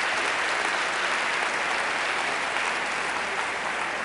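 A large auditorium audience applauding, a dense, steady clapping from many hands.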